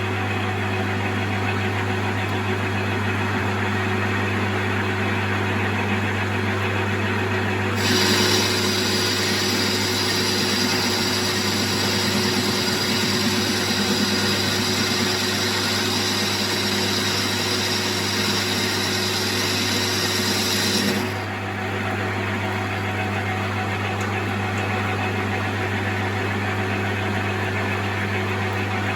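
Metal lathe running steadily with a low motor hum. About eight seconds in, a boring bar starts taking a half-millimetre cut in cast iron, adding a high hissing scrape that stops after about thirteen seconds while the lathe keeps running.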